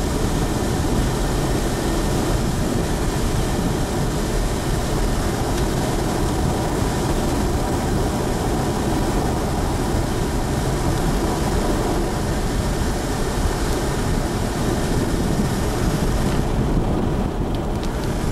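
A vehicle driving along a gravel road, with steady road and engine noise.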